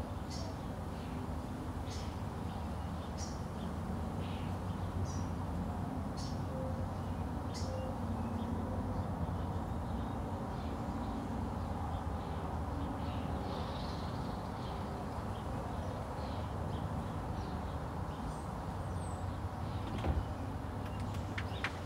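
Outdoor ambience: a steady low rumble with short high bird chirps every second or so. A sharp click sounds near the end.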